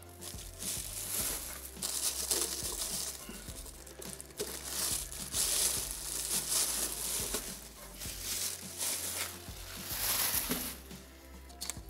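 Plastic bubble wrap and packing paper crinkling in irregular bursts as they are handled and pulled away, over a steady low hum.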